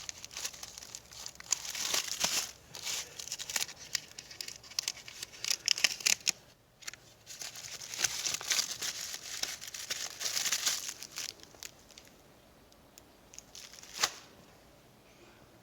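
Irregular crinkling and rustling, like plastic wrapping or packaging being handled, in bursts that fade out about eleven seconds in, then one sharp click near the end.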